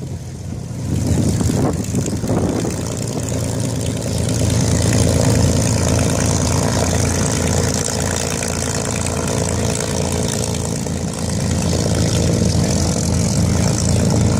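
Piston aero engines of a Supermarine Spitfire and a de Havilland Mosquito running steadily at low power while taxiing: a deep, even drone with a hiss above it.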